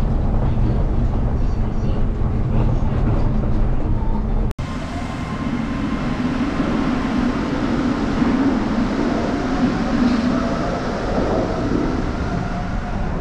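Osaka New Tram, a rubber-tyred automated people mover: a steady low running rumble inside the car. After a sudden cut about four and a half seconds in, the train moves along the platform with a steady whine of its electric motors.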